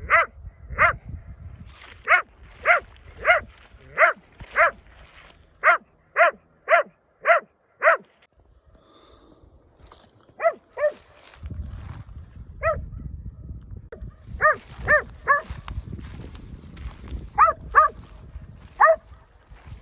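Hunting dog barking in short, high-pitched barks at a badger, about two a second. The barks pause for about two seconds, then come back in uneven clusters.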